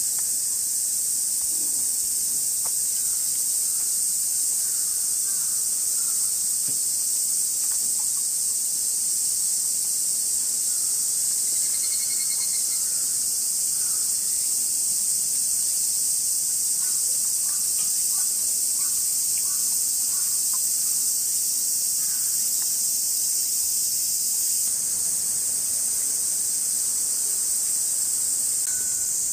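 Steady, high-pitched buzzing chorus of summer cicadas.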